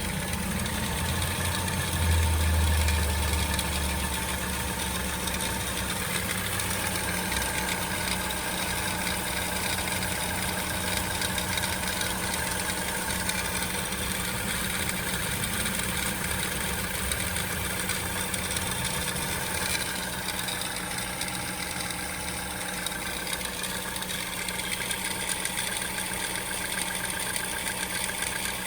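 Peugeot 208 petrol engine idling steadily, with a louder low rumble for a couple of seconds near the start.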